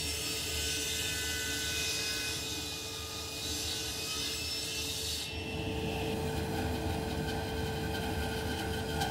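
SawStop table saw ripping a wooden board, the blade cutting with a high hiss for about five seconds. Then a bandsaw resawing a thick block into thinner boards, a quieter cut over a steady hum.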